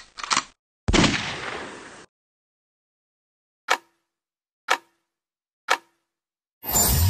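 Countdown sound effects: two quick clicks, then a loud hit that fades out over about a second, then three short ticks one second apart counting down, and a short noisy burst near the end.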